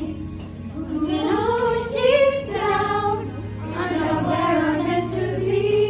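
A school choir of young voices singing a song together, holding a long note near the end.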